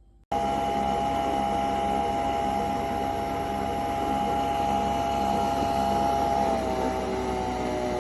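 Krups Nespresso Vertuo Pop capsule machine brewing: its motor and pump start suddenly and run with a steady whir and whine, the pitch dropping about six and a half seconds in.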